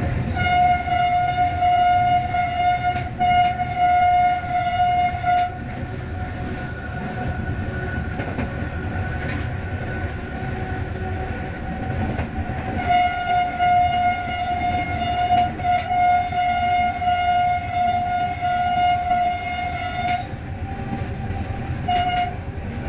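Locomotive horn sounding one steady note in two long blasts, about five and seven seconds long, then a short toot near the end, over the steady rumble and clickety-clack of the train running along the track.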